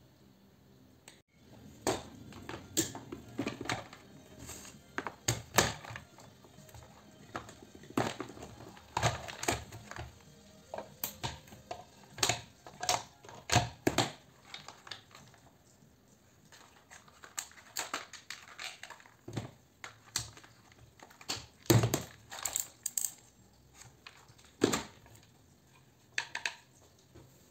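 Irregular plastic and metal clicks, snaps and knocks from a Stirella steam iron being taken apart by hand, its plastic shell coming off the metal soleplate and parts being set down on the bench. There is a quieter pause partway through.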